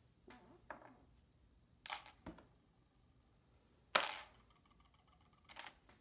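Handling noise close to the microphone: a handful of short knocks and rustles, the loudest about four seconds in.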